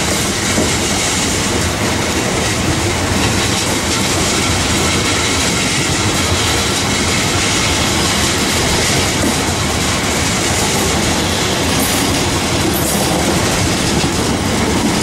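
Freight train of covered biomass hopper wagons rolling past steadily, its wheels running over the rails.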